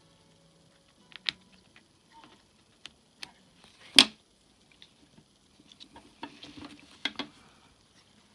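Scattered light clicks and taps, with a single sharp knock about four seconds in and a patch of rustling with more clicks near the end: hands handling ball python eggs and their incubation tub.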